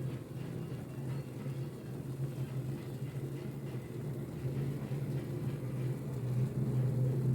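Steady low hum of a small motor running, growing slightly louder near the end.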